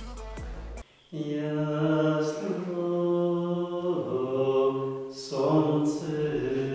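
Background music cuts off abruptly under a second in; after a short pause a man starts singing unaccompanied, a slow chant with long held notes and brief breaths between phrases.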